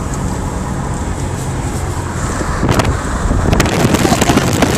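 Four-wheel-drive vehicle driving, a steady engine and road-noise hum heard from inside the cabin. From about three seconds in it grows louder, with scattered sharp clicks and knocks.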